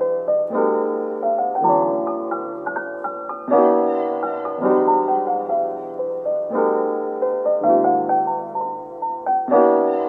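Background music: a gentle solo piano tune, chords struck every one to two seconds with a short falling melody over each.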